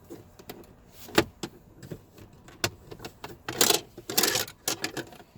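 Handling noises: scattered clicks and knocks, one sharp click just over a second in, then a stretch of rustling and rattling about three and a half seconds in.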